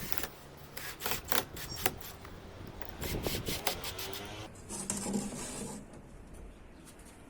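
Wood being worked by hand: a quick run of knocks and clicks, then a short scraping rasp about five seconds in.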